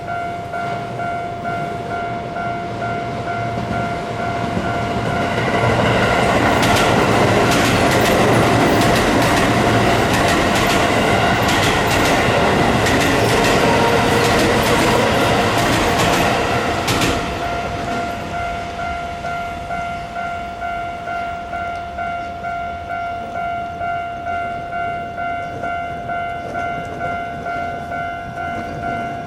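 A Japanese level-crossing warning bell rings in a steady repeating pattern. A Keio Line electric train passes over the crossing from about five seconds in until about seventeen seconds, its wheels clacking over the rail joints.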